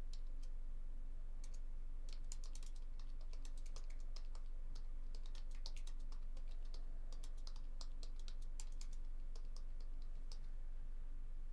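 Typing on a computer keyboard in irregular bursts of quick clicks, over a steady low electrical hum.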